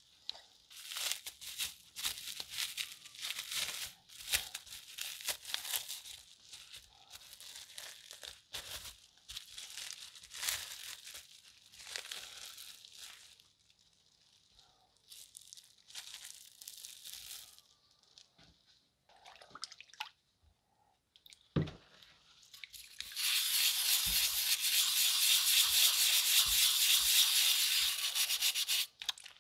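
Parts being washed by hand in a tub of soapy water: irregular crinkling of a plastic wrapping and rubbing of wet rubber gloves, with a single low knock, then a steady, louder scrubbing as a small stiff brush works over a submerged metal sharpener part for the last several seconds.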